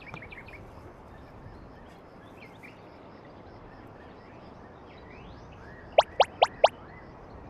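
Forest ambience: a steady outdoor hush with faint bird chirps. About six seconds in come four loud, quick chirps in a row, each sweeping sharply upward in pitch.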